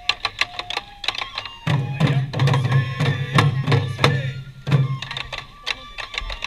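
Sansa dance festival music: rapid, sharp drum strikes in a dense rhythm, joined by a deep booming drum from about two seconds in until near five seconds.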